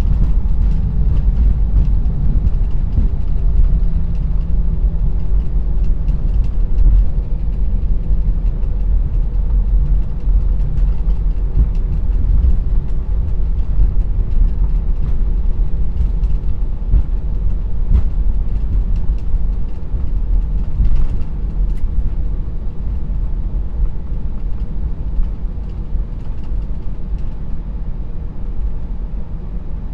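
Cabin noise of a jet airliner rolling on the ground after landing: a steady low rumble from the engines and the wheels on the pavement, with a few light knocks. It eases off slightly in the last third as the plane slows.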